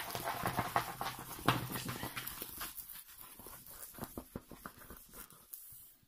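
A diamond painting canvas and its release-paper cover rustling and crackling as it is unrolled and handled on a wooden table, in irregular quick crinkles that die away near the end.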